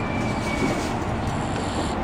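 Steady running noise of a train heard from inside the carriage, with a faint high wheel squeal that slowly falls and fades out about a second in.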